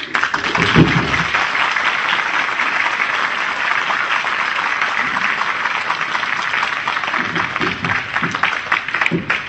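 Audience applauding, starting suddenly and going on steadily.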